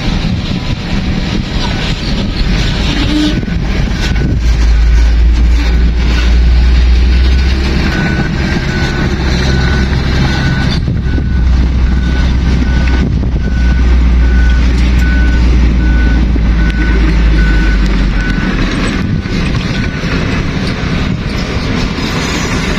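Heavy diesel construction machine engine running loud and low, working harder for most of the middle stretch, while a reversing alarm beeps about once a second for roughly ten seconds.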